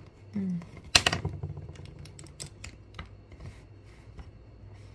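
A quick, irregular run of sharp clicks and light knocks, loudest in a cluster about a second in and then thinning out, like small hard objects being handled.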